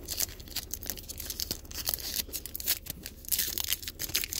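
Foil trading-card pack wrapper being torn open and crinkled in the hands: a quick run of sharp crackles that grows denser and louder about three seconds in.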